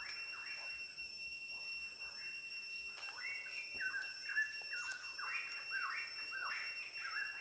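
A steady high-pitched whine, with a quick run of squeaky chirps that rise and fall in pitch from about three seconds in. Faint clicks of a serrated knife cutting through a raw carrot.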